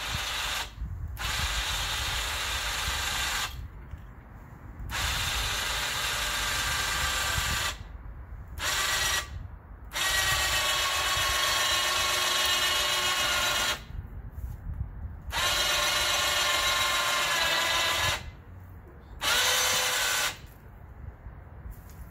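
A 2,500 lb electric winch on an engine hoist runs in about seven bursts of a few seconds each, with short stops between them. It gives a steady motor-and-gear whine as it winds in cable under the load of a truck axle.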